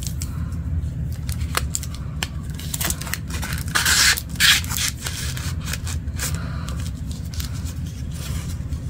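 Paper candy-bar wrapper being slid over a Hershey's bar and handled: crinkling, scraping and rustling with small clicks, loudest about four seconds in.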